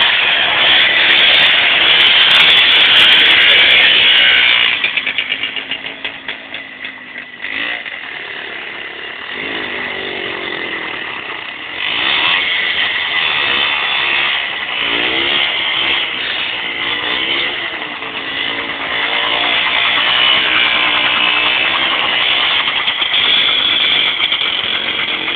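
Homemade quad bike's MZ two-stroke motorcycle engine running hard. About five seconds in it drops to a sputtering idle, then it revs up and runs loud again from about twelve seconds on.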